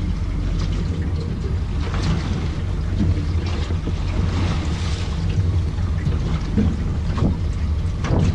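Wind buffeting the microphone on an open boat at sea: a steady low rumble under a hiss of wind and water, with a few light knocks.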